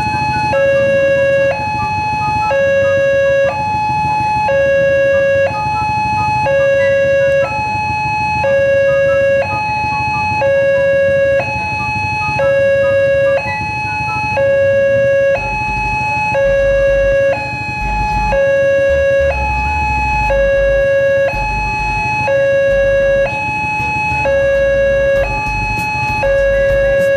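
Railway level-crossing warning alarm sounding a loud electronic two-tone signal, a lower and a higher tone taking turns about once a second, the warning that a train is approaching and the barrier is closed. A low rumble joins about halfway through.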